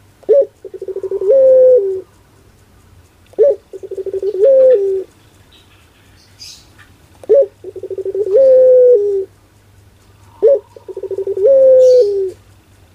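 A puter pelung ringneck dove cooing four times, about every three and a half seconds. Each call is a short sharp opening note, then a rolling coo that swells into a long held note that steps up in pitch and then falls back.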